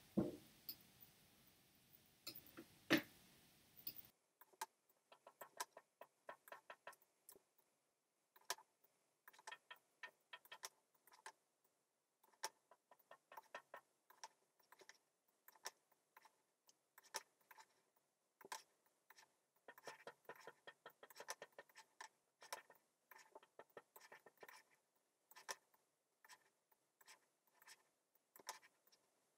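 Faint, irregular clicking of a computer mouse and keyboard, some clicks coming in quick runs several to a second. The footage is sped up, which crowds the clicks together.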